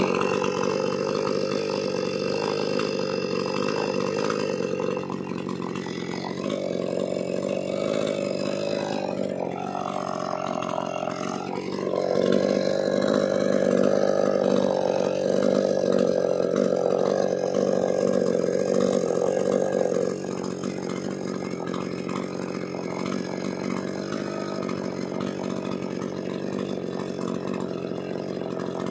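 Maximus 57cc two-stroke chainsaw engine running without cutting while its carburettor is adjusted with a screwdriver, the engine speed shifting. It dips and recovers about ten seconds in, holds higher and louder, then drops to a lower steady speed about twenty seconds in.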